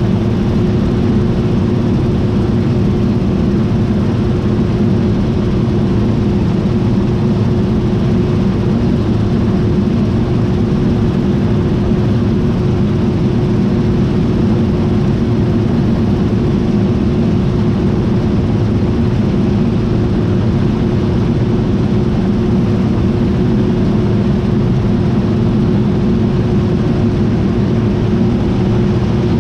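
John Deere T660i combine harvester running at a steady load, a constant loud machine drone with one held tone over it and no change in speed.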